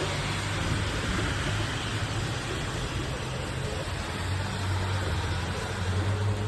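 Steady storm noise: an even hiss of rain and wind over a low, steady hum, with no thunderclap.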